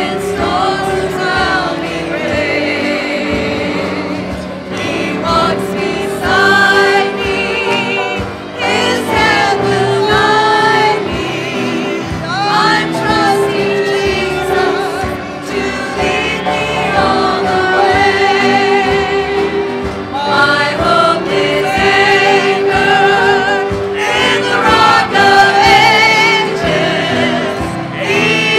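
Gospel music: a choir singing with vibrato over a sustained held note, at a steady level.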